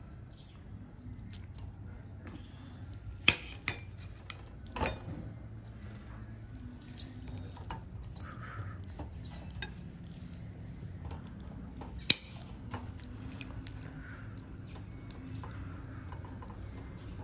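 Cutlery and dishes clinking at a table: a few sharp clinks about three to five seconds in and another about twelve seconds in, over a low steady hum.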